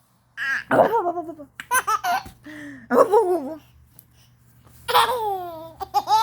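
A baby laughing in four or five separate bursts with short pauses between, one near the end sliding down in pitch.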